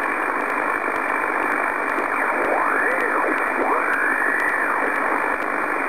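Shortwave amateur transceiver receiving the 15 m band in upper sideband: steady band-noise hiss from the speaker as the VFO is tuned upward, with two brief whistles that rise and fall in pitch a few seconds in as signals are tuned past.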